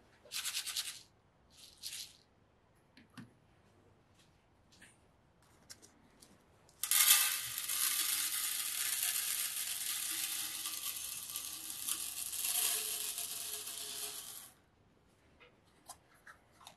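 White crystals poured from a plastic tub over a rusty iron axe head in an enamel tray, making a steady, even rattling hiss as they land. The pour starts about seven seconds in and lasts about seven and a half seconds. Two short bursts of the same kind come near the start.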